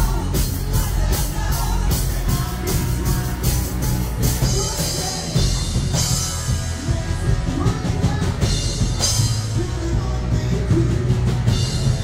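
Loud rock music with a steady drum beat, heavy bass and singing.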